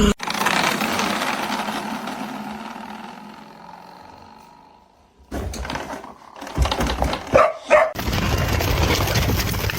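A dog giving two short cries about seven seconds in, amid a steady rushing noise.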